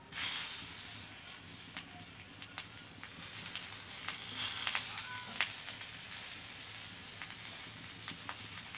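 Rolled taro-leaf slices coated in gram flour sizzling in oil on a hot iron griddle as they are laid down one by one to shallow-fry, a steady hiss with scattered crackles and pops.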